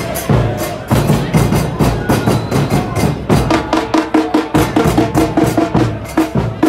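Music with a fast, steady drum beat of about four hits a second; a held pitched tone joins in about halfway through.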